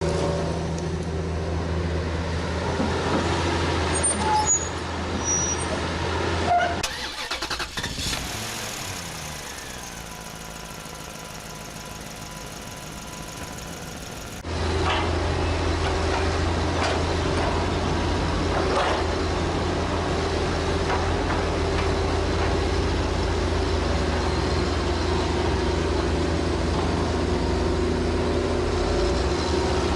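Hitachi excavator's diesel engine running at a steady pitch, with a few knocks and clatters. About a quarter of the way in, it gives way to a quieter stretch with a slow falling sweep; near the halfway point the steady engine returns.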